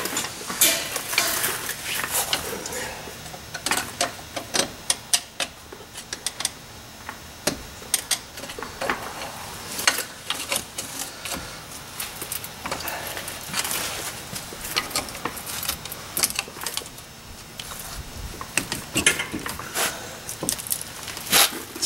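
Scattered metallic clicks and clinks of hand tools on a disc brake caliper as its Allen-head caliper bolts are worked out.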